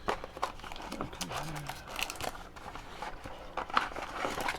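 Plastic wrap crinkling and tearing as a trading-card blaster box is unwrapped, in irregular crackles and clicks.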